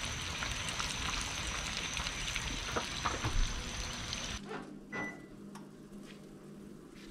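Red snapper nuggets deep-frying in vegetable oil at about 350°F in a cast iron skillet over a gas burner: a steady, dense sizzle. It cuts off abruptly about four seconds in, leaving a quieter low hum with a single click.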